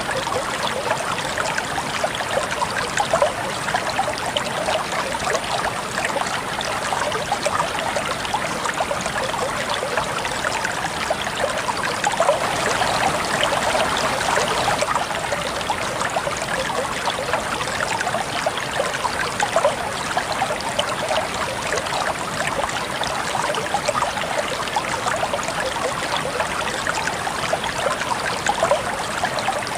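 River water flowing steadily over a shallow bed, a continuous trickling rush.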